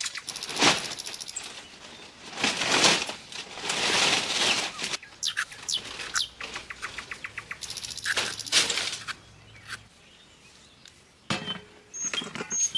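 A small metal blade scraping the skin off pointed gourds (parwal) in short, repeated strokes, with a quick run of clicks in the middle and a quiet pause near the end. Birds chirp in the background.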